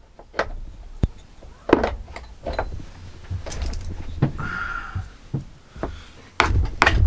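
Scattered knocks, clicks and clunks as chainsaw parts and tools are handled during cleaning, with a louder low rumble near the end.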